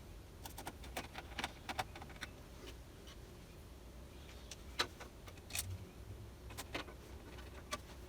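Light clicks and taps of hands working on parts inside a PC case, scattered at irregular intervals, with a sharper click about five seconds in.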